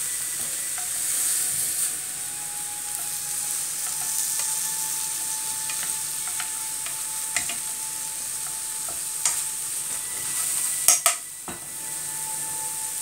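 Prawns sizzling in a bubbling soy-and-sugar sauce in a frying pan, a steady hiss. Chopsticks click against the pan now and then as the prawns are turned, with a louder cluster of knocks about two seconds before the end.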